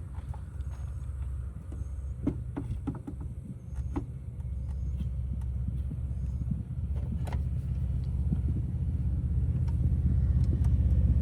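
Steady low rumble that grows louder toward the end, with a few light clicks and taps about two to four seconds in and once more about seven seconds in, from hand work on the engine's plastic PCV valve fittings.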